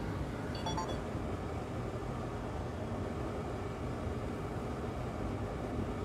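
Steady rushing fan noise at a soldering bench, with a short electronic beep about half a second in.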